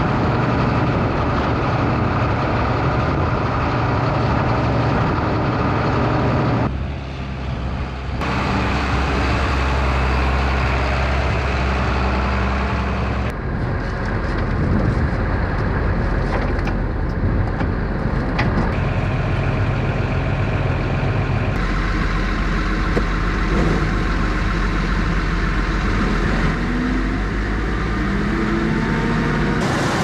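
Heavy farm machinery engines running steadily, heard in several short clips that cut abruptly from one to the next.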